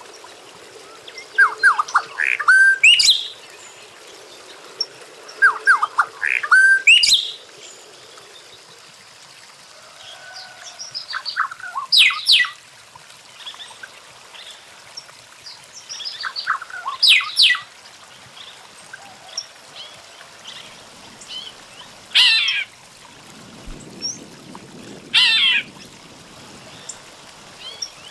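Golden-winged cacique (tecelão) singing: short phrases of clear notes sweeping up and down in pitch, repeated every few seconds, about seven phrases in all.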